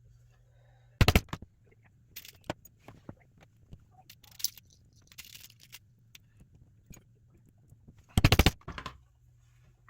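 Hammer striking a snap-setting die to set a metal snap through fabric: a quick few blows about a second in and a rapid run of several blows near the end, with light clicks of the snap parts and die being handled in between.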